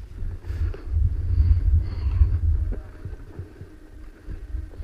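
Low rumbling buffeting on a body-worn camera's microphone, heaviest in the first three seconds, with scattered light rustles and footfalls as the wearer pushes through dry brush and grass.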